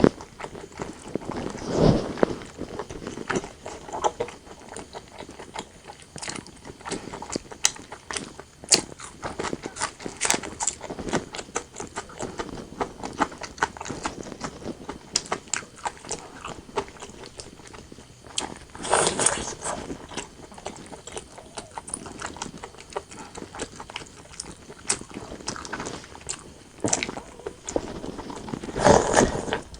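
Close-miked chewing of braised pork belly and white rice: a steady run of small wet mouth clicks and smacks, with a few louder bites, about two seconds in, around two-thirds of the way through and near the end.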